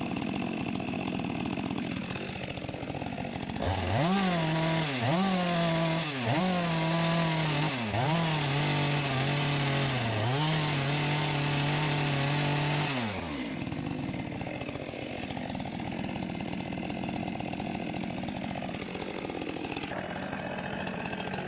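Two-stroke chainsaw idling, then opened to full throttle for about nine seconds while cutting wood, its pitch dipping sharply several times as it loads in the cut. It then drops back to idle.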